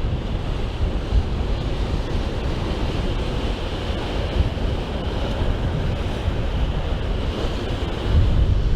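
Strong wind blowing on the microphone, a heavy uneven rumble over a steady rush of wind and waves.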